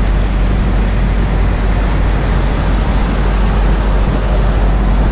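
Steady rumble of an idling diesel semi-truck, with a steady hiss over it.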